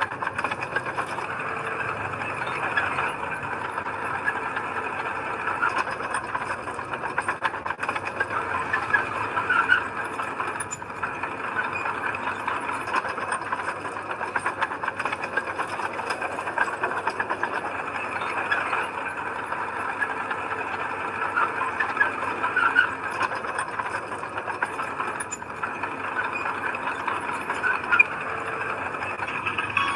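Bulldozer running and moving, its engine steady under a continuous squealing and rattling from the steel tracks.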